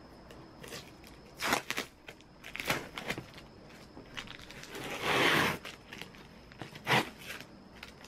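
Clear plastic packing tape being picked at and peeled off a cardboard box: several short crackles as it lifts, and one longer rip about five seconds in.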